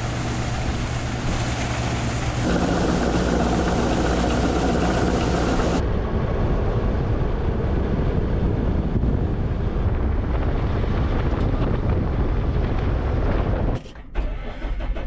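Heavy farm vehicle's diesel engine running steadily, its sound changing abruptly twice in the first six seconds and dropping out briefly near the end.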